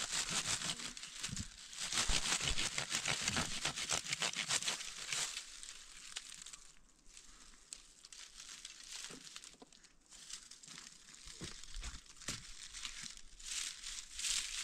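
Rapid crinkling and rustling of dry material, dense for about the first five seconds, then fading to scattered crackles.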